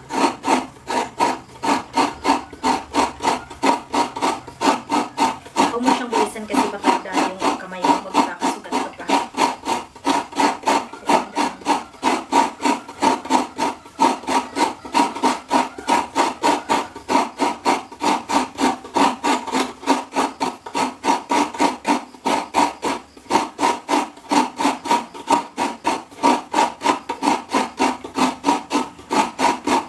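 Half a coconut scraped by hand over a stool-type coconut grater (kayuran), grating out the white meat in a steady run of rasping strokes about three a second.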